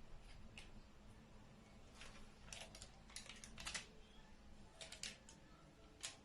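Faint, scattered light clicks and taps of kitchen handling while a cream filling is spread around rolled-out pizza dough.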